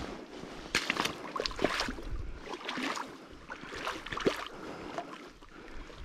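Irregular squelching and splashing in mud and shallow puddled water, in short uneven strokes.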